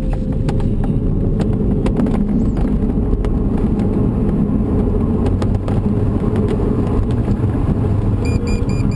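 Loud steady rumble of an aerotow take-off roll inside a glider cockpit: the Remos G3 tow-plane's engine at take-off power, mixed with wind and the glider rolling on the runway, with scattered knocks and rattles. Near the end a cockpit instrument starts beeping rapidly, about four beeps a second.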